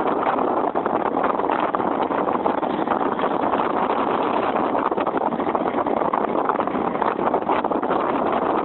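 Steady rushing noise of a motorcycle on the move, with wind and engine noise blended into one even roar and no distinct events.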